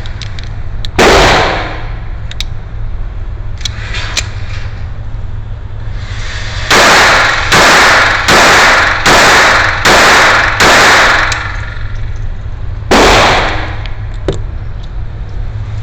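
Raven Arms P-25 .25 ACP pocket pistol being fired: one shot about a second in, a quick string of six shots a little under a second apart from about seven seconds in, then one more shot near the end. The pistol is cycling without jams after a rebuild with new springs and a new sear.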